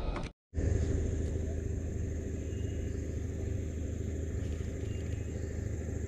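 Steady low motor hum with a thin, steady high whine above it, broken by a brief moment of silence about half a second in.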